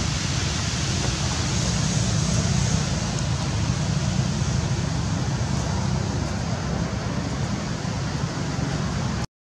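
Steady outdoor background noise: a low rumble under an even hiss, with no distinct events, cutting out abruptly near the end.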